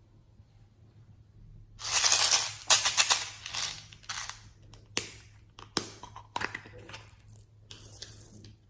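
Slime being squeezed and pressed by hand, giving a dense run of sharp crackling pops and clicks that starts about two seconds in and thins out into scattered pops.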